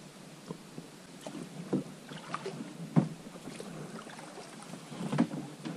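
Rowing an inflatable PVC boat through a shallow riffle: oars dipping and splashing with a handful of short knocks, the loudest about three seconds in, over the low rush of moving water.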